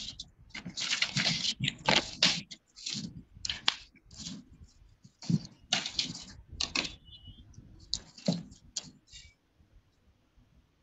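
Irregular short bursts of crackling and rustling noise over a Zoom call's audio, dying away about nine seconds in.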